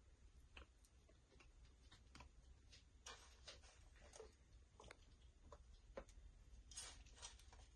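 Faint, irregular light clicks and rustles of crisp fried bread pieces being picked by hand from a metal bowl and dropped into a plastic container.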